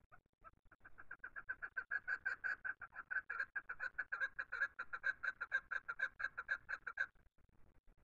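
Chukar partridge calling: a rapid, even run of short repeated notes, about five a second, that swells over the first couple of seconds and stops abruptly near the end.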